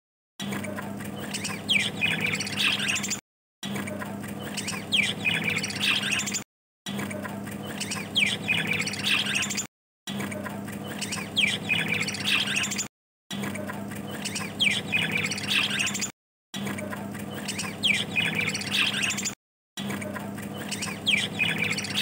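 Budgerigars chattering and squawking, with one sharp downward whistle in each phrase, over a steady low hum. The same three-second stretch plays over and over, about seven times, with short silent gaps between.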